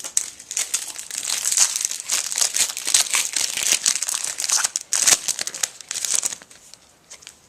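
Trading-card pack wrapper being crinkled and torn open by hand, a dense run of crackling for about six seconds that dies down near the end.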